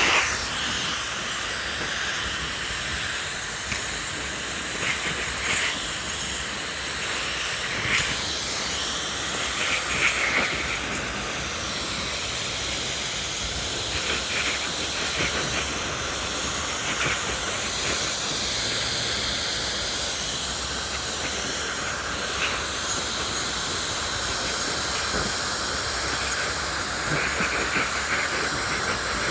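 Dyson hairdryer blowing on its cool setting: a steady rushing hiss of air with a thin, high-pitched whine, and a few brief louder moments.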